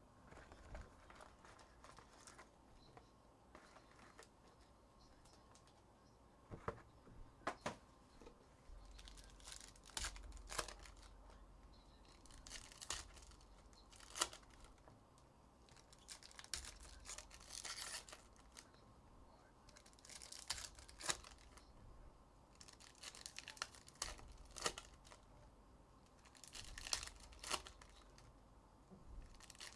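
Foil wrappers of 2023 Upper Deck Goodwin Champions trading-card packs being torn open and crinkled by hand. It comes in short bursts of crackling and tearing with a few sharp clicks, starting about six seconds in.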